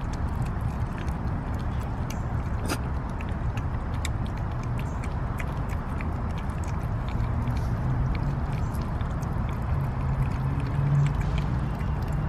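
Cats eating wet canned cat food from plastic bowls: a run of small wet clicks from their chewing, smacking and lapping, over a steady low rumble.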